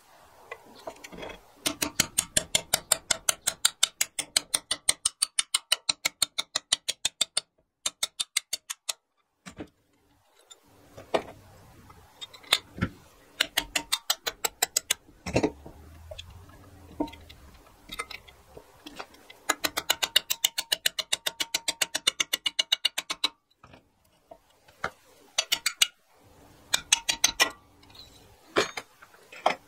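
Runs of rapid, even metal taps, several a second, with a few single knocks between: a small hammer tapping a pin punch against the cast-iron crankcase of a Suffolk Punch lawnmower engine.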